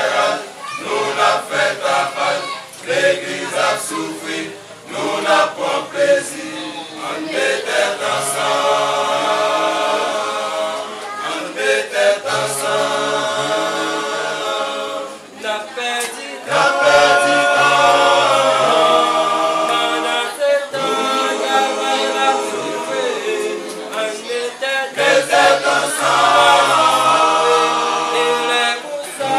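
A group of men singing a sacred song a cappella in harmony, several voices together with no instruments.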